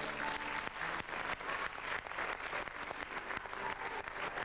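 Theatre audience applauding: many hands clapping in a steady, dense patter.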